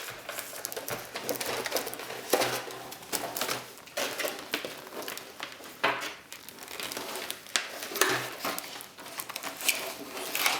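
Packaging being handled: the box and its contents rustle and crinkle in irregular bursts, with occasional sharp clicks and knocks.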